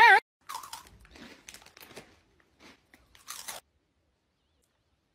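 A wavering vocal 'aaaa' cuts off right at the start. Then someone crunches and chews a crunchy snack in a few short, irregular bursts over the next three seconds or so.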